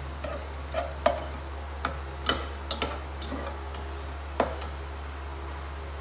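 Metal spoon knocking and scraping against a cooking pot while stirring chopped onions frying in oil: about ten irregular clicks that stop about four and a half seconds in.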